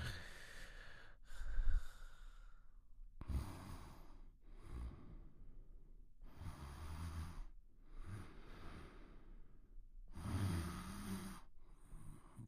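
A sleeper breathing slowly and heavily with soft, quiet snoring, about one breath every three seconds, some breaths carrying a low flutter. A louder low rumble comes about a second and a half in.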